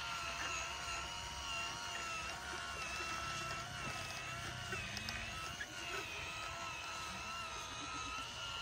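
The small motor of a handmade remote-controlled miniature MF 385 tractor whines steadily, wavering slightly in pitch, as it pulls a heavily loaded sugarcane trolley and works against the weight.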